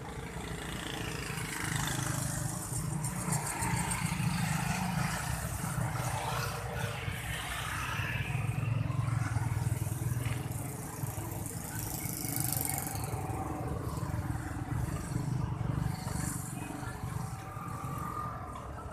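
Engine running with a low drone that swells and fades several times, over faint background voices.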